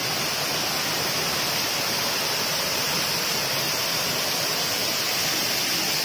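Tall waterfall pouring steadily into its rocky pool, a constant even rush of falling water.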